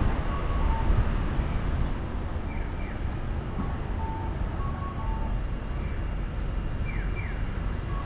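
Low steady rumble of the car's engine and road noise, with a Japanese audible pedestrian crossing signal sounding over it. The signal gives a repeating two-note cuckoo call, high then low, and twice a pair of quick falling chirps.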